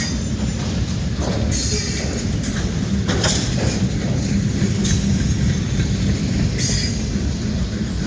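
Train passing: a steady low rumble of the cars rolling by, with short high squeals from the wheels every second or two.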